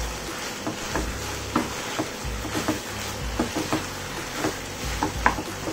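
Wooden spatula stirring cauliflower florets in wet masala paste in a non-stick kadai, with irregular knocks and scrapes against the pan, two or three a second, over a steady sizzle.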